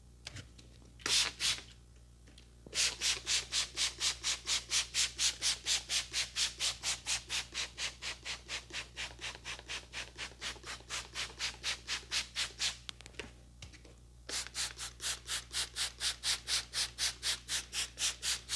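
Brisk back-and-forth rubbing strokes of the barber's scrub or massage, about four a second. Two strokes come about a second in, then a long steady run, a short pause around two thirds of the way through, and a second run.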